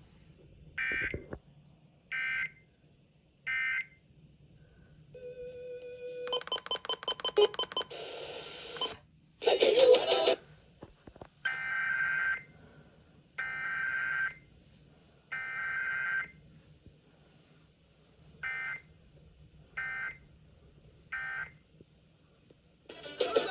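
Emergency Alert System SAME digital data bursts, harsh buzzing chirps of paired tones. Three short end-of-message bursts come first, then a run of rapid electronic beeps and tones, then three longer header bursts about a second apart. Three more short end-of-message bursts follow with no attention tone or voice between, as in a required weekly test.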